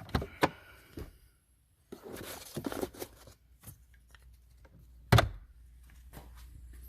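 Handling noises of someone moving things around: a few light knocks and clicks, a stretch of rustling, and one louder thump about five seconds in, followed by a faint low rumble.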